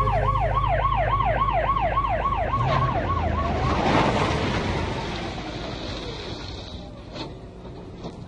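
Fast wailing siren sound effect, its pitch rising and falling about five times a second, fading out about four seconds in. A rush of noise follows and dies away, with a couple of faint clicks near the end.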